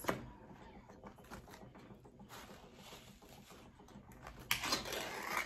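Small food tin being handled and opened: light clicks and fumbling, then a sudden louder scraping, tearing sound about four and a half seconds in as the lid comes open.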